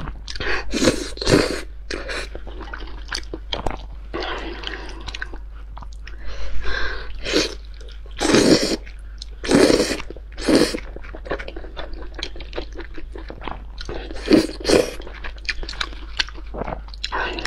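Close-up eating sounds of thick noodles with crayfish tails: loud wet slurps as strands are sucked in, between stretches of chewing. The slurps come in short, separate bursts, the loudest group about eight to eleven seconds in and another about fourteen seconds in.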